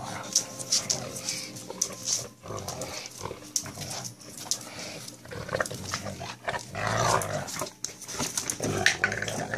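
Two dogs, a large mastiff and a small black-and-white puppy, playing tug-of-war over a rope toy: dog play noises come in irregular bursts, with claws ticking and scrabbling on a tile floor.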